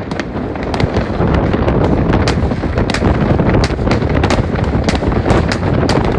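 Fireworks rockets and firecrackers going off: many sharp cracks and bangs at irregular, often overlapping intervals, over a steady low background noise.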